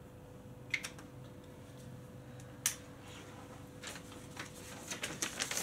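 A few faint, sharp clicks and taps from small parts and tools being handled, over a faint steady hum.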